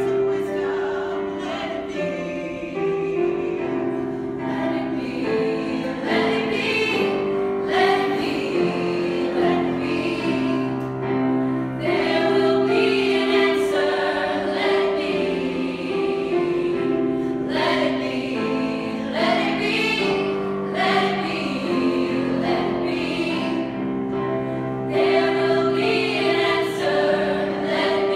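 A choir of women's and men's voices singing a pop ballad in harmony, over long held chords.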